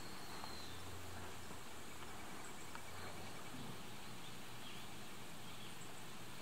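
Quiet rural outdoor ambience: a steady, even hiss, with a faint low hum during the first second and a half and a faint, rapid insect-like trill about two seconds in.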